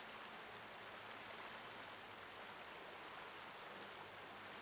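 Faint, steady rush of flowing river water.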